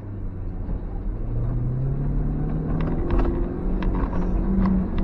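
Suzuki X-90's 1.6-litre four-cylinder petrol engine, heard from inside the cabin, pulling away with the revs rising, then holding steady under load. From about three seconds in, short knocks and rattles come from the car jolting over a rough dirt track.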